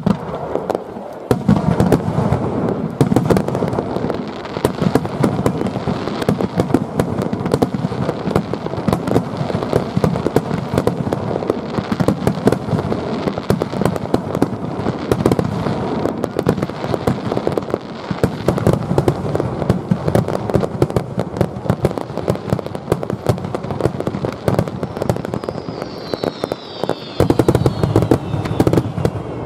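Aerial fireworks going off in a dense, rapid barrage of bangs and crackles that starts about a second in, with a falling whistle near the end.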